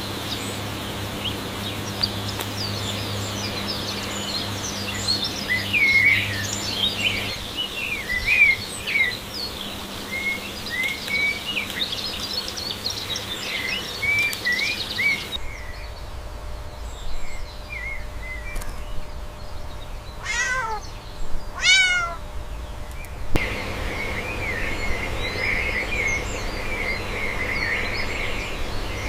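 A cat meowing twice, each call sliding down in pitch. It comes after a long stretch of busy small-bird chirping over a faint low hum. Near the end a steady high chirring carries on.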